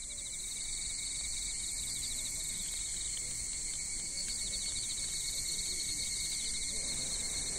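Evening insect chorus: crickets chirping steadily in a dense, fast trill.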